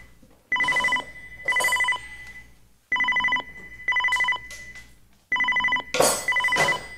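Telephone ringing in double rings, three pairs of short trills, then cutting off near the end. A brief clatter about six seconds in.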